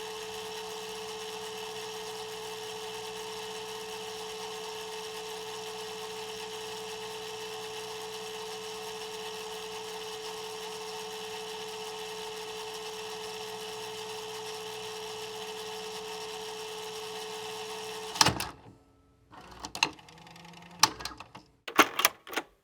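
VCR running with a steady mechanical whir and a constant hum, which stops suddenly with a loud click near the end, followed by several sharp clicks and clunks of the tape mechanism.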